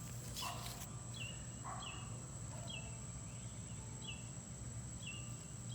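A bird repeating a short, falling call note about once a second, with a background of outdoor ambience.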